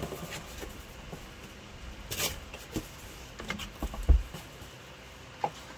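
Automatic record changer after a 45 rpm single has finished: the stylus clicks softly in the run-out groove, and a low thump of the changer mechanism sounds about four seconds in.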